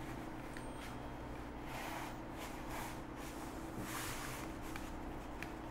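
Soft, faint rustling and brushing of hands pressing rolled pie-crust dough into pie plates, a few light swishes over a steady electrical hum.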